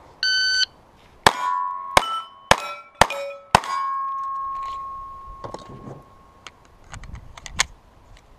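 A shot timer beeps once, then a .22 rimfire Ruger pistol fires five quick shots about 0.6 s apart, each answered by the clang of a steel plate target ringing. The last plate rings on for about two seconds, and some light clatter follows near the end.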